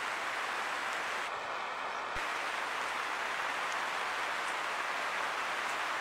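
Steady rain falling, an even hiss with faint scattered drop ticks. There is one short low thump about two seconds in.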